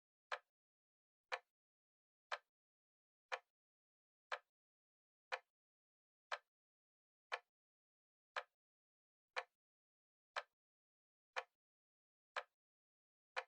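Clock-style ticking from a timer: one short, sharp tick every second, perfectly regular, with silence between ticks.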